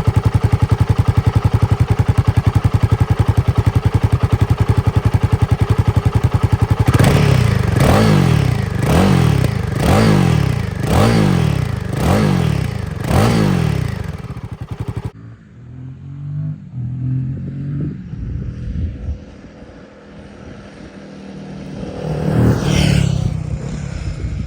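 Royal Enfield Himalayan 450's single-cylinder engine through its standard stock exhaust, idling steadily just after start-up. About seven seconds in it is blipped about seven times, roughly once a second. Then the sound drops suddenly to a quieter, uneven engine note with one rev rising and falling near the end.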